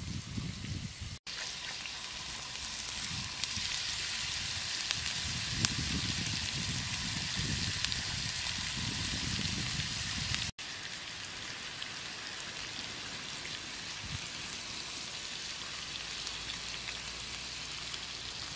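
Chicken gizzards sizzling on a hot stone plate over a wood fire: a steady frying hiss with small scattered crackles and pops.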